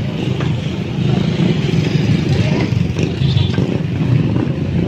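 Motorcycle and road-traffic engines running, a steady low rumble.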